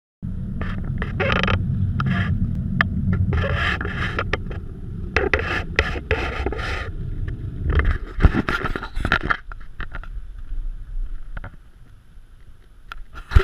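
Car driving over sand, heard from inside the cabin: a steady low rumble of tyres and running gear with irregular scraping and rattling. The rumble drops away about eight seconds in and the noise grows quieter.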